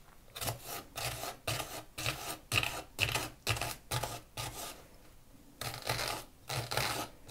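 Small kitchen knife slicing through a peeled onion on a wooden cutting board: crisp cuts about two a second, with a short pause about five seconds in.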